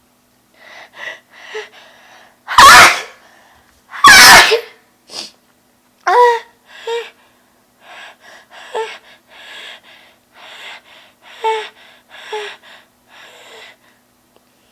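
A woman sneezing twice, loudly, about two and a half and four seconds in, with a few short breaths before the first sneeze. These are followed by a long string of short, catching breaths.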